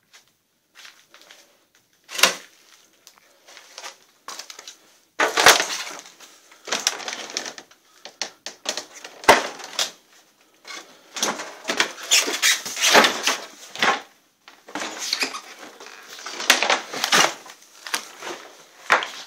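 Irregular crunching, rustling and clattering from someone moving about over debris on the floor, with a few sharp knocks.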